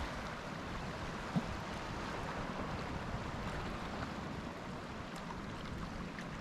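Waves of the Celtic Sea washing onto the shore in a steady rush of surf, with one short low thump about a second and a half in.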